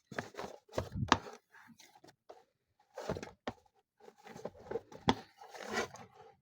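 Hands mixing and kneading mandazi dough (flour, sugar and lemon) in a bowl: irregular bursts of rubbing and slapping with a few sharper knocks, broken by short pauses.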